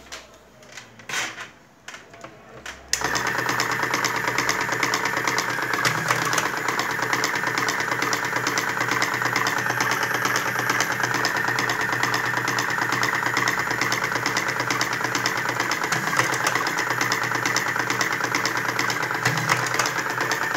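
Electric slim cigarette-filling machine, a 12-volt motor-driven tobacco tube injector, starting suddenly about three seconds in and then running steadily as it fills filter tubes with tobacco, without straining. A few short knocks from handling come before it starts.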